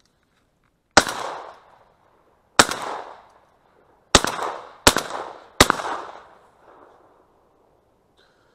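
Shotgun fired five times, emptying its magazine: two shots about a second and a half apart, then three in quick succession, each report trailing off in a short echo.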